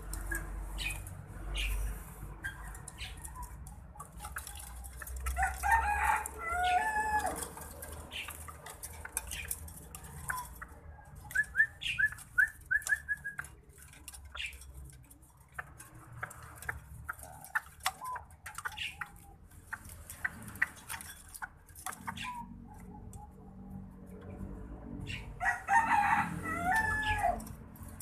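A rooster crows twice, about six seconds in and again near the end, over the rattling and clicking of wire bird cages being handled. About eleven seconds in, a bird gives a quick run of short chirps.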